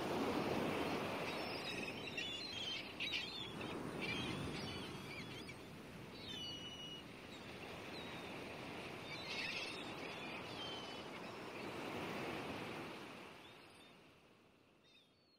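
Sea waves washing ashore in slow swells, with birds chirping now and then; the sound fades out near the end.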